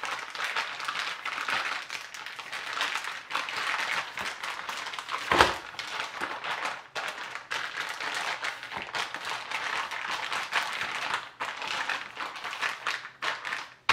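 Plastic zip-top bag full of marinated chicken drumsticks crinkling and rustling as hands press the air out of it and smooth it flat, with one louder thump about five seconds in.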